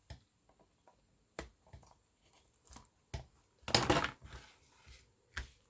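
Scissors trimming paper: a few light snips and clicks, then a louder rustling cut about four seconds in.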